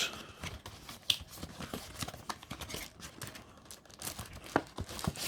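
Packaging being opened and handled: rustling and scraping with scattered small clicks and taps.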